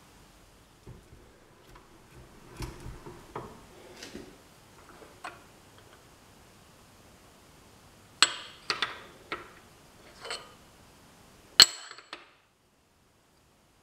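Aluminium soft jaws being handled and set onto the steel jaws of a bench vise, metal knocking on metal. Soft knocks come first, then from about two-thirds of the way in a run of sharp metallic clinks with a short ring, the loudest just before the end.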